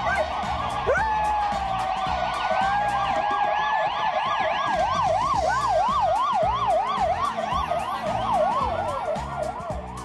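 An emergency-vehicle siren wails with a fast up-and-down pitch, and a husky mix howls along with it. The dog's howl starts with a quick rise about a second in and holds a long, nearly level note, then the siren's wobbling wail carries on alone.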